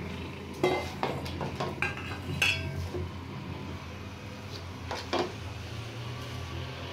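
A slotted spoon stirs chickpeas in a metal kadai, scraping and knocking against the pan in a cluster of clatters in the first three seconds and again about five seconds in. A steady low hum runs underneath.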